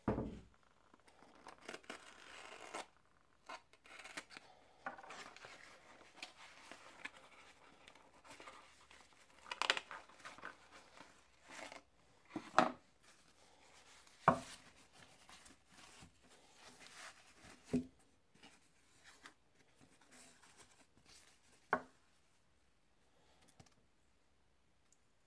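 Unboxing handling noise: a small cardboard box being opened and handled, and plastic wrapping crinkling and tearing as it is pulled off. Several sharp knocks come later as the box and parts are set down on a wooden table.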